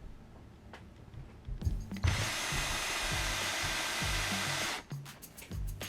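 A power drill drives a screw into a plastic screw hole. It runs steadily for about three seconds, starting about two seconds in, then cuts off suddenly, followed by a few light clicks.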